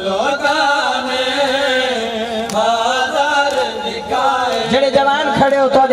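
A man's voice reciting a noha, a Shia lament, in a long wavering chanted melody.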